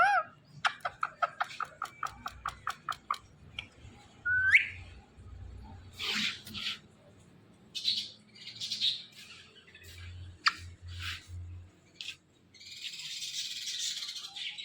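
Ringneck parrot calling: a quick run of short chirps, a rising whistle, then scattered harsh squawks and a longer harsh call near the end.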